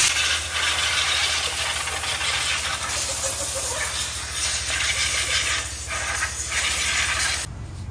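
Compressed-air blow gun blasting in one long hiss, blowing dust out of a scooter's opened CVT transmission housing. The hiss dips briefly a few times and cuts off abruptly near the end.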